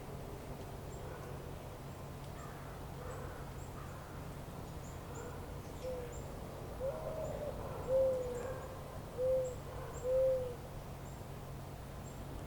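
A bird gives four low, arching calls in the second half, the loudest two near the end. Faint high chirps and a steady low outdoor hum lie beneath them.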